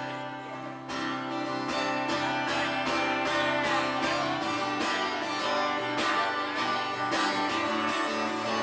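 Guitar strummed in a steady rhythm, about two strokes a second, picking up again after a short quieter moment about a second in.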